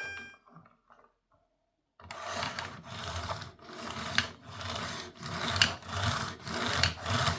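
Plastic toy vehicles being rubbed and scraped across a play surface, starting about two seconds in, in uneven strokes about twice a second.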